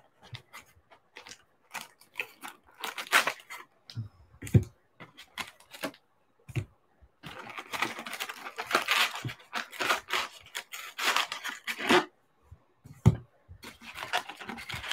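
Trading-card pack wrappers being handled and torn open: scattered crackles and clicks, with a dense stretch of tearing and rustling in the middle.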